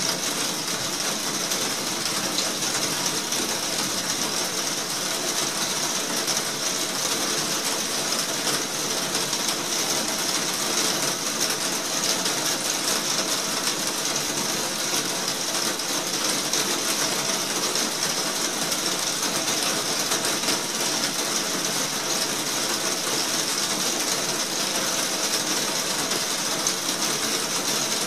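Heavy rain falling on a roof, heard from the room beneath it: a dense, steady patter of drops.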